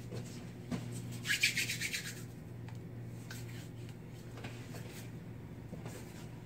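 Hands rubbed briskly together, a short scratchy swish lasting under a second, about a second and a half in, with a few light clicks of movement around it.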